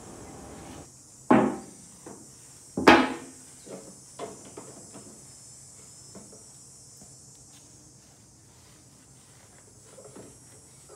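Two sharp knocks about a second and a half apart, then a few lighter clicks and faint handling noise from hand work on the snow thrower's underside.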